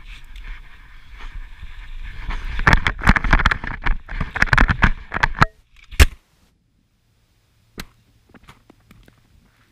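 Snow, branches and twigs scraping and cracking against a rider and the camera while pushing through a tight tree run, growing louder and denser with many sharp snaps. About five and a half seconds in the noise cuts off abruptly. A single hard thump follows, then the sound goes almost dead apart from a few faint ticks.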